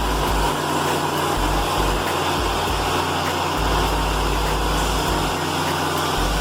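Engine-driven band sawmill running steadily, a constant engine hum under machine noise.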